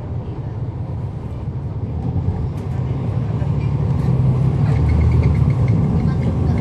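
Cummins ISL9 diesel engine of a 2011 NABI 40-SFW transit bus, heard from on board, running with a deep rumble that grows steadily louder as the bus pulls away. Faint repeated ticks come in near the end.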